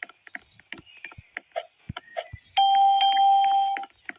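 A steady electronic beep lasting just over a second, beginning a little past halfway, amid scattered short clicks.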